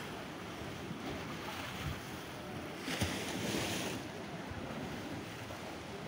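Sea waves washing over a shallow reef and against the rocks, a steady wash with a louder surge about three seconds in. Wind buffets the microphone.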